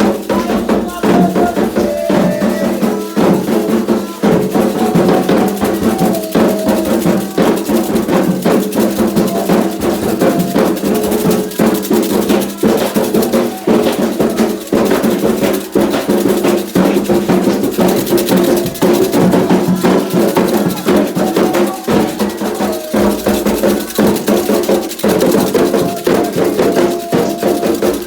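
Candomblé ritual percussion: atabaque hand drums playing a toque for Oxumarê with a struck bell or wood-like click and shaken rattles, over voices singing, in a steady unbroken rhythm.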